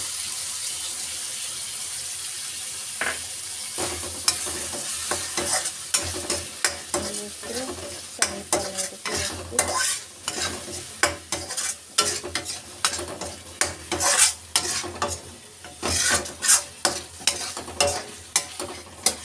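Thick onion-tomato masala frying and sizzling in a metal kadai. From about four seconds in, a metal spatula scrapes and knocks against the pan again and again as cashew paste is stirred into the masala.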